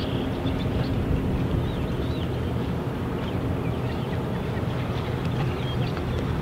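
Steady low rumble of boat engines carried across the water of a harbour channel, mixed with wind buffeting the microphone, and faint high bird chirps now and then.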